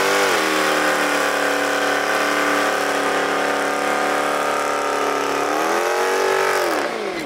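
Chrysler 300's engine held at high revs during a burnout, its rear wheels spinning. The pitch dips briefly at the start, holds steady, climbs about five and a half seconds in, then falls away near the end.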